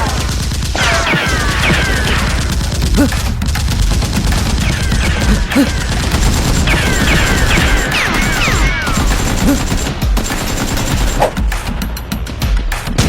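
Rapid gunfire sound effects, bursts of automatic fire with falling whizzing streaks, over a steady bass-heavy music bed.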